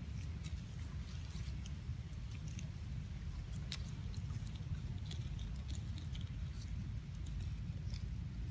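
Outdoor ambience: a steady low rumble with scattered small clicks and crackles, one sharper click a little before the middle.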